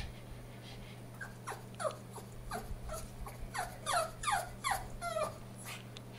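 Pug whining in a quick run of about a dozen short yelps, each sliding down in pitch, starting about a second in and stopping just past five seconds.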